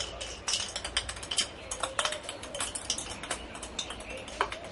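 A ping-pong ball clicking and bouncing on a tile floor as a kitten bats it about: a rapid, irregular run of light hard taps.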